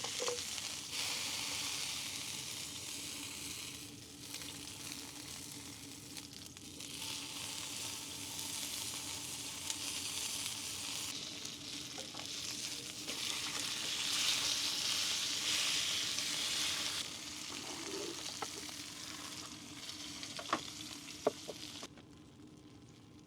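Steak sizzling in a hot frying pan, the sizzle swelling and easing in waves, with a few sharp metal clicks near the end; the sizzling cuts off shortly before the end.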